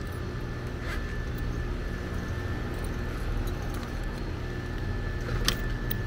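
A 2-ton scroll-compressor air-conditioner condensing unit running with a steady hum and a thin high whine. Two sharp small clicks come over it, about a second in and near the end, as clip-on temperature probes are handled.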